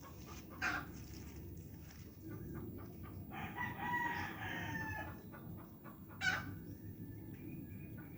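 A rooster crowing once, a call of about a second and a half, with two brief sharp sounds before and after it, over a steady low rumble.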